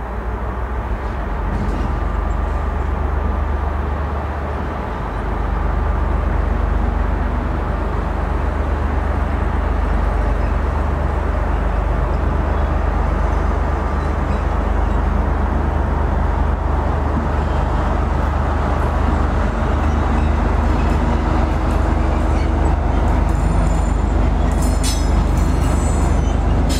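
Green Cargo T44 diesel-electric shunting locomotive, with its EMD two-stroke diesel engine, running with a steady deep rumble as it hauls freight wagons slowly through the yard. In the last few seconds, high squeals and clicks from the wheels on the rails begin to come in.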